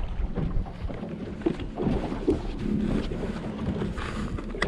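Crestliner fishing boat running fast across the lake: a steady rumble of wind buffeting the microphone and water rushing along the hull.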